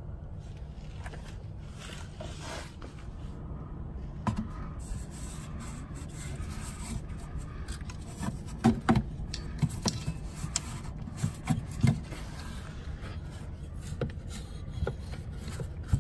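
Clicks, taps and scraping of hand tools and metal parts as the BMW transfer case servo motor is unbolted and worked free from under the car. A steady low hum runs underneath, and the clicks come in a cluster in the second half.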